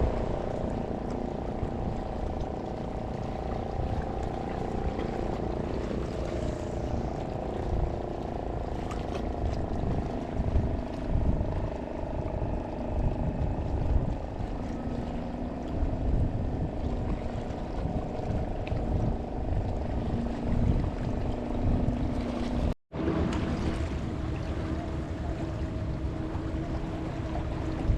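Boat engine running steadily close by, with wind and water noise underneath. There is a short break near the end, after which the engine note sits at a different pitch.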